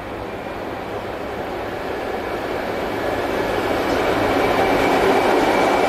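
An EF class electric locomotive and its train approaching at speed, the rumble of wheels on rail growing steadily louder, with a thin steady whine above it. The sound echoes under the platform roof.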